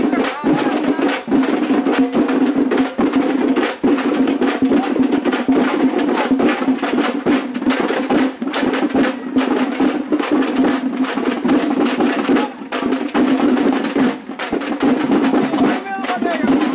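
Festival procession music: rapid, dense drumming with a steady held tone beneath it, never pausing.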